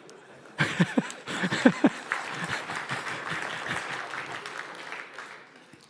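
Audience laughing and clapping, breaking out suddenly about half a second in and slowly dying away near the end.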